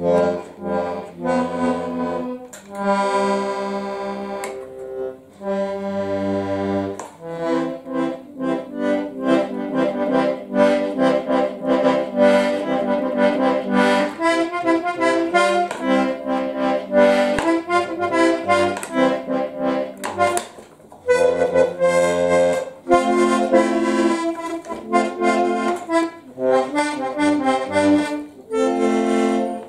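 Button accordion played solo: a tune of quick reedy notes over sustained bass chords as the bellows push and pull, with a couple of short breaks about two-thirds of the way through.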